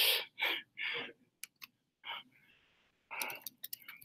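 Computer keyboard keys being pressed: a few separate keystrokes, then a quick run of typing near the end. There are breathy exhales in the first second.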